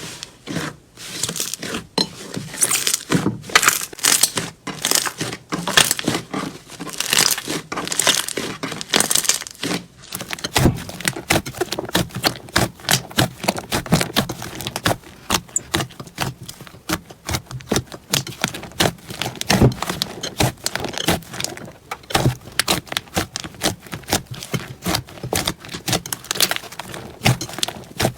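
Slime being squished and poked by hand, a dense run of crackles and small pops; the texture of the sound changes abruptly about ten seconds in.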